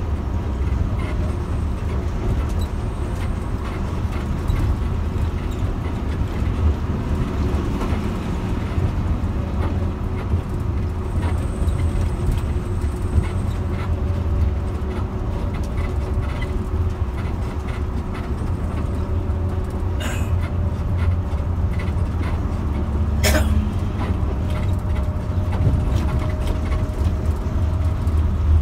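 Steady low rumble of an intercity bus cruising on a highway, heard from inside the cabin: engine and tyre noise with a faint whine that shifts in pitch. A single sharp click sounds about four-fifths of the way through.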